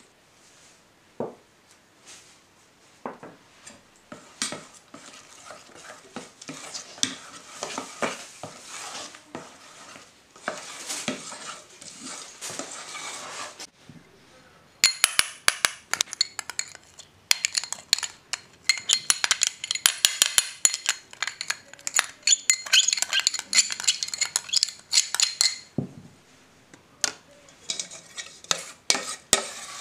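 A steel spoon stirring thick cake batter in a steel pot, with soft scraping. About halfway through it gives way to louder, rapid clinking and scraping of a spoon against small glass bowls as they are greased with ghee.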